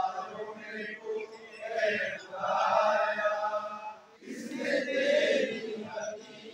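Many men's voices chanting an Urdu hamd (a hymn praising God) together, in long held sung lines. A little past halfway there is a brief breath-pause before the next line starts loudly.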